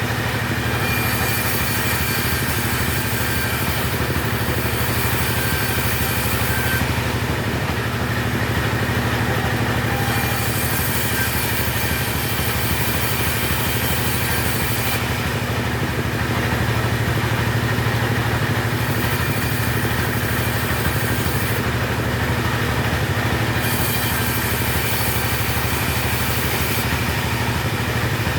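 Two-stroke chainsaw engine running steadily, with its upper hiss dropping away and coming back every few seconds.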